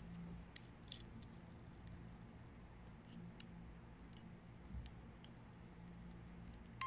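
Faint, scattered clicks of fingers handling a small wooden hand-crank music box and its crank, over a low steady hum.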